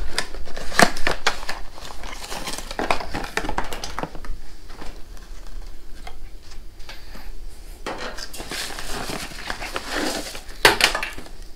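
A small cardboard box being opened and handled by hand: flaps scraping and folding, with irregular rustling and light knocks as the contents are moved. A few louder knocks come near the end.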